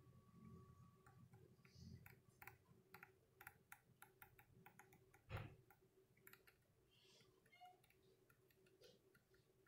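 Faint, irregular clicks, several a second, as a control on an Arduino ventilator's operation panel is stepped to change the inspiratory time setting. One low thump about five seconds in.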